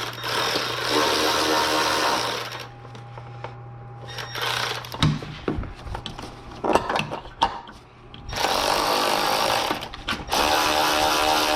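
Milwaukee cordless power tool spinning an 8 mm bolt in three runs, one at the start and two close together near the end, with clicks and knocks of hand work between them.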